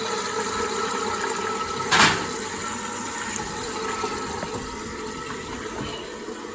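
Water running into a toilet cistern as the fill valve refills it after the supply is turned back on: a steady rushing that slowly eases, with a brief louder burst about two seconds in.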